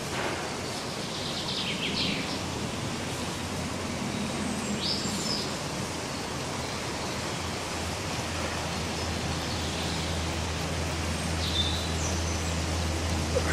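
Outdoor woodland ambience: a steady hiss of background noise with a few short, high bird chirps. A low steady hum comes in a little past halfway.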